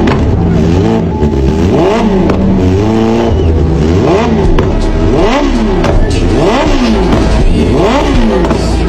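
Kawasaki Ninja H2-series supercharged inline-four engine revved repeatedly in quick throttle blips, about two a second, its pitch rising and falling with each one.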